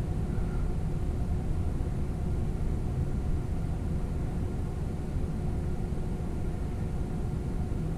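Steady low hum of workshop room noise, like a ventilation or heating fan running, with no distinct events.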